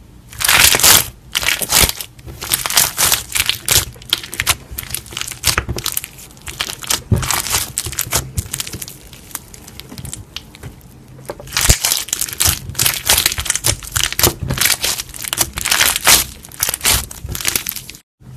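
Slime being squeezed and pressed by hand, giving runs of dense, crisp crackles and pops in bursts, loudest near the start and again in the second half.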